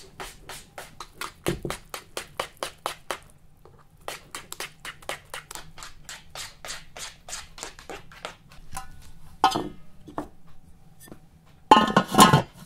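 Batter being beaten in a bowl, the utensil clicking against the bowl's side about five times a second, with a short pause. Near the end an enamelled metal pot lid clatters loudly as it is handled.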